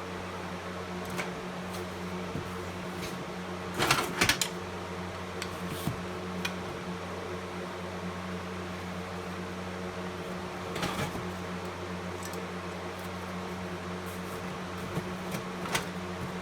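Old Simplex fire alarm equipment being taken out of a box: scattered knocks and clicks of the devices being handled, the loudest a short cluster about four seconds in, over a steady low hum.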